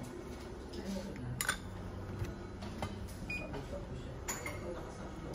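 A few light clicks and knocks from coffee brewing gear being handled, the sharpest about a second and a half in, over a steady low hum.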